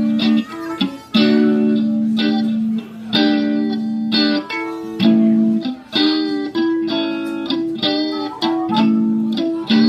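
Electric guitar playing a slow blues line through an amplifier. Its notes are struck sharply and left to ring and fade, with a few short bends.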